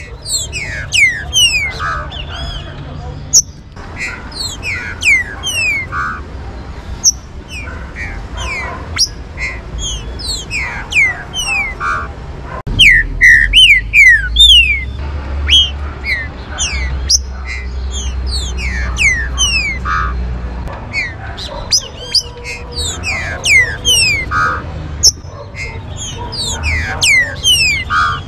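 Green-winged saltators (trinca-ferro) singing and calling together: a dense run of quick, downward-sliding whistled notes with harsher calls among them. Underneath is a low steady rumble that gets louder through the middle.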